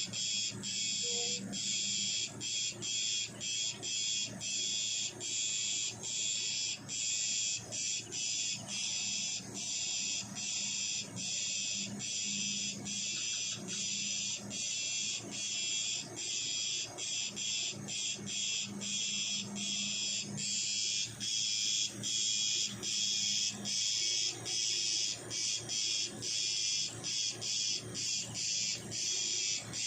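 Night insects in the forest shrilling: a high, unbroken buzz chopped by short gaps about twice a second.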